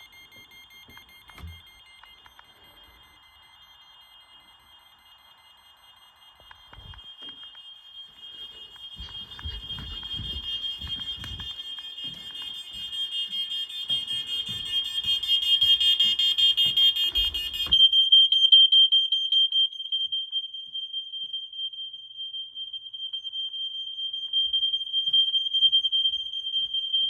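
Several hardwired, interconnected smoke alarms sounding together, each at a slightly different pitch. They are faint at first and grow louder from about a quarter of the way in, with some knocking from the alarms being handled. A little past halfway all but one stop suddenly, and a single alarm keeps sounding alone.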